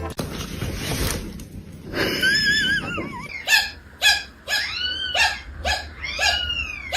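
Cat meowing: one wavering call, then a string of short rising-and-falling meows about two a second, after a couple of seconds of noisy rustle.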